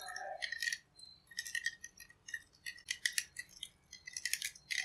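Thin coated copper wire from a small transformer's secondary winding being unwound from its bobbin and wrapped around a glass bottle, with irregular clusters of light ticks and clinks as the wire and bobbin tap against the glass.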